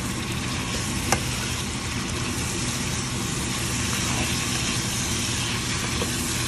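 Shrimp sizzling in butter, garlic and oyster sauce in a non-stick pan while a silicone spatula stirs them, over the steady hum of a kitchen exhaust fan. One sharp click about a second in.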